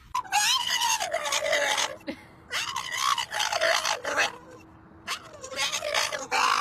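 A stocky bully-type dog giving three long, loud, raspy howling cries with a wavering pitch, each lasting well over a second, with short pauses between them.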